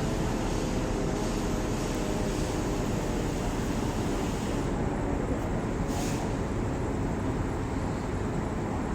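Steady railway station background noise: an even rumble and hiss from trains and the platform, with no distinct events apart from a brief hiss about six seconds in.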